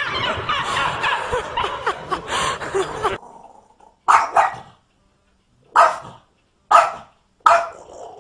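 A small dog barking sharply five times: two quick barks, then three single barks about a second apart. Before them comes about three seconds of busy noise with voices.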